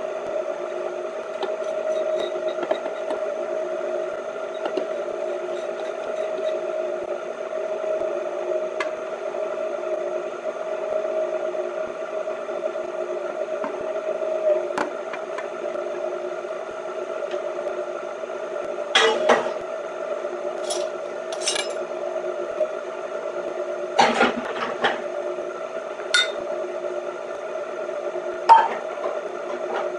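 An Aucma 660 W tilt-head stand mixer running steadily, its motor giving a constant whine as the beater works flour and fruit into batter. In the second half a few short clinks and knocks sound over it.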